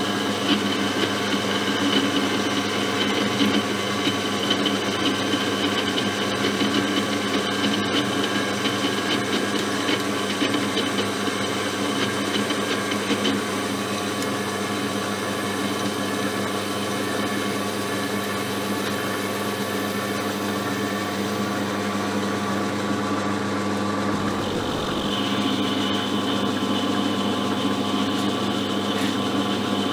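Small hobby lathe running with a steady motor and gear whine as its carbide tool turns a stainless steel shot-glass blank. There is a scratchy, crackling cut over the first dozen seconds, then a smoother hum with a brief break about 24 seconds in.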